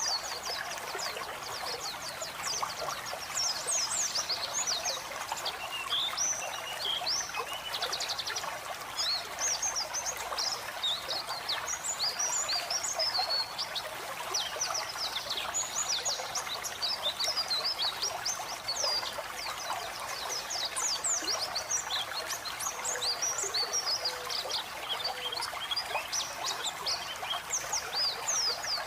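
White-eye (pleci) singing a fast run of high, twittering chirps and short sweeps, packed closely together, over steady trickling running water.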